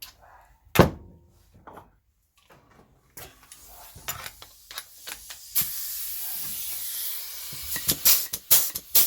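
One loud clack about a second in. Then compressed air hisses from the pneumatic air joggler, steady for a couple of seconds. Near the end the tool starts cycling in quick, repeated sharp strokes as it is worked to purge air from its freshly topped-up oil side.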